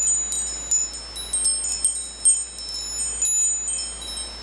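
Wind chimes ringing: many high, clear notes struck at irregular moments, each one ringing on and overlapping the next.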